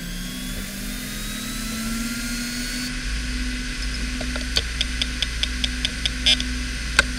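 Fujitsu MBA3300RC 15,000 rpm SAS hard drive spinning up: its whine rises in pitch for about three seconds, then settles into a steady hum. From about four seconds in, the heads click about five times a second as the drive initialises, with one louder click near the end.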